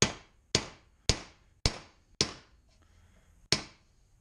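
Ball-peen hammer striking a steel bearing driver, tapping a new bearing down into an NP231 transfer case housing. Five sharp metallic strikes come about two a second, each with a short ring, then a pause and one more.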